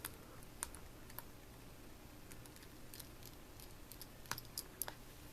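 Light, scattered clicks and taps of a Torx screwdriver working the screws of a Palm Pilot's plastic back cover, with a quick cluster of clicks about four seconds in.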